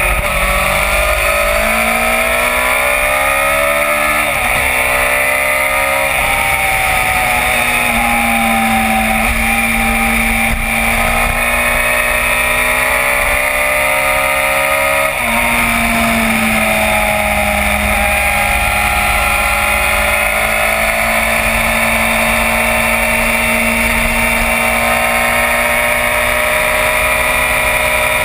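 Sport motorcycle engine heard from an onboard camera, its note rising and falling with the throttle through the bends, with a few gear changes, over steady wind noise on the microphone.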